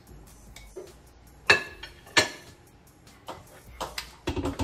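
Kitchen clatter of plates and an air fryer basket being handled: two sharp knocks with a short ring about a second and a half and two seconds in, then lighter clicks and knocks that grow busier near the end.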